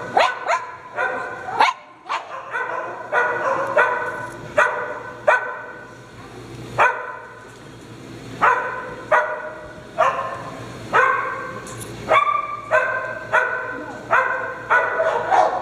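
Dog barking over and over, a bark about every half second to a second, with a short lull a little before halfway.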